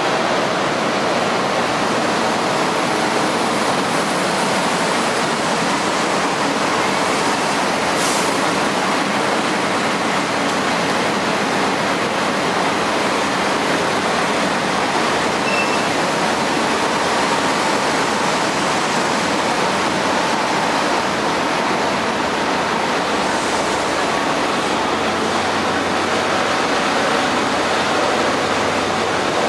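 Steady rushing noise of the Seven Stars in Kyushu luxury train's cars rolling slowly past alongside the platform, with one sharp click about eight seconds in.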